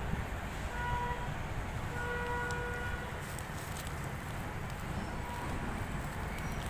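Steady low rumble of background vehicle traffic, with a faint distant horn sounding twice, briefly about a second in and longer from about two seconds.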